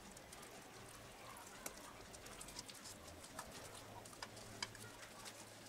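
Wire balloon whisk stirring thick cake batter in a bowl, its wires giving faint, irregular clicks against the bowl's side about every half second.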